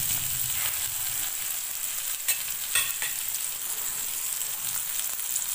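Fish steaks sizzling in hot oil on a black iron tawa, a steady frying hiss with a couple of sharp pops about two and a half seconds in. The fish is nearly cooked through.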